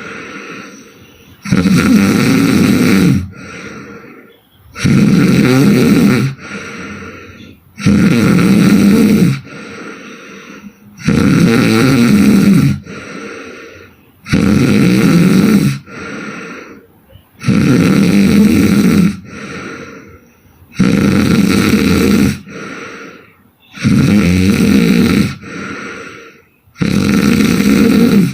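A woman snoring hard in sleep: about nine loud snores, one every three to three and a half seconds, each lasting under two seconds, with a quieter breath between them.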